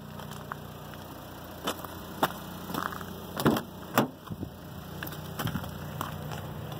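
Handling clicks and knocks as a small SUV's rear passenger door is unlatched and swung open, the loudest two about three and a half and four seconds in, over a steady low hum.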